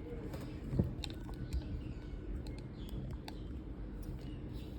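Faint handling noise of small plastic parts: a few light clicks and a soft knock about a second in, over a low steady hum.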